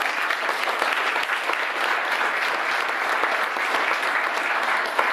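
Audience applauding steadily for several seconds, tapering off after the end.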